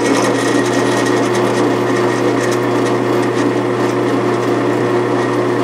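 Drill press running steadily, its freshly resharpened twist bit cutting a bolt hole through a metal block and throwing curly chips. There is a steady motor hum throughout.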